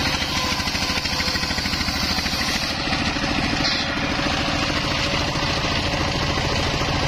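Single-cylinder stationary diesel engine running steadily with a rhythmic low beat, driving a homemade table circular saw. The blade rips through a teak log at first, and the high cutting hiss stops a little before halfway, leaving the engine and the free-spinning blade.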